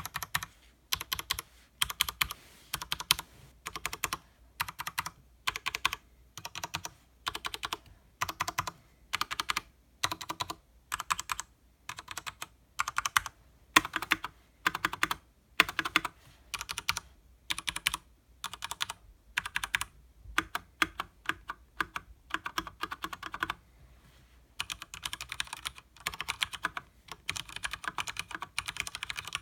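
Typing on a Leopold FC900R full-size mechanical keyboard with Cherry MX Speed Silver linear switches and double-shot PBT keycaps: rapid clacking keystrokes in bursts of about a second with short pauses between them, turning into faster, more continuous typing near the end.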